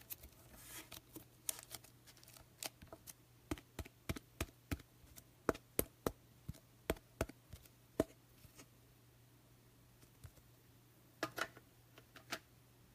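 Trading cards and plastic card holders being handled on a table: a run of sharp clicks and taps for several seconds, then a pause and a short cluster of clicks near the end.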